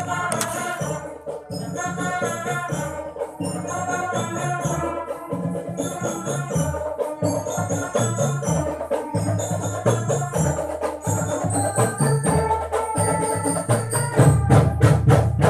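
Marching drum band playing a tune: a melody over a steady beat of bass drums and other drums. Near the end the drumming turns into a loud run of quick strokes.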